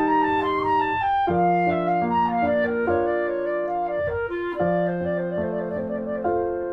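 Instrumental background music: a woodwind melody of held notes over piano chords.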